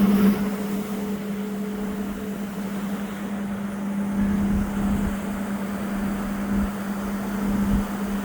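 Ferry's engines running with a steady low hum, under irregular low rumbles.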